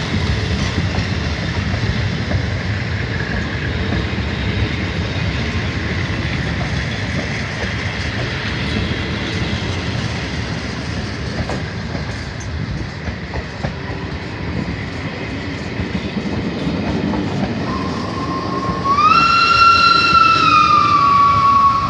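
Train running on the rails with a steady rumble and clatter. Near the end it sounds a loud warning blast lasting about three seconds, jumping up in pitch at the start and sagging slightly as it holds.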